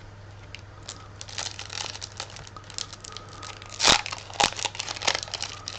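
Crinkling and crackling of a foil Pokémon booster pack wrapper being handled and opened, with a sharp, louder crackle about four seconds in.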